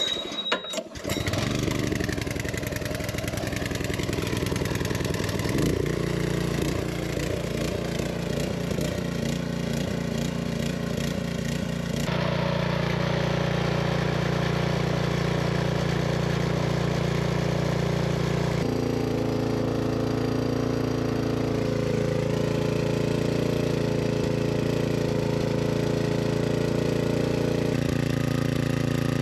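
Small single-cylinder four-stroke engine, lubricated with 100% rapeseed oil instead of engine oil, starting up and catching about a second in, then running steadily. Its note changes abruptly a few times, about 6, 12 and 19 seconds in.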